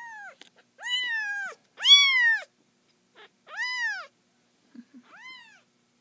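Three-week-old kitten meowing: about five high, squeaky cries in a row, each a short call that rises and falls in pitch. The loudest comes about two seconds in, and the last is fainter.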